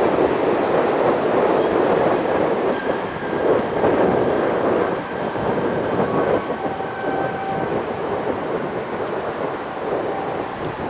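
Boeing 737 jet engines rumbling as the airliner rolls along the runway. The sound is a steady low roar with a faint whine, easing a little after about five seconds.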